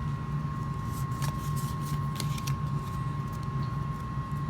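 Trading cards being handled and shuffled through, with a few short rustling clicks about one to two and a half seconds in. Under them runs a steady low hum with a faint constant tone, like a fan or air conditioner.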